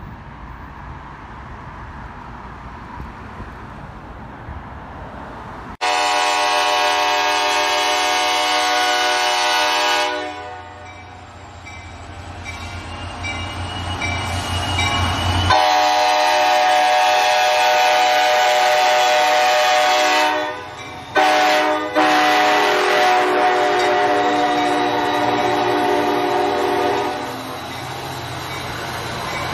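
Commuter train's multi-chime air horn sounding the grade-crossing signal: two long blasts, a short one and a final long one, as the train approaches and passes. Before the horn there is a low rumble, and after it the train running past on the rails.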